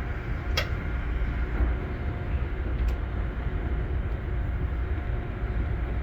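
Steady low rumble with two small clicks, a sharp one about half a second in and a fainter one near three seconds, as the rubber fuel line and its spring clip are worked back onto the mower's fuel fitting.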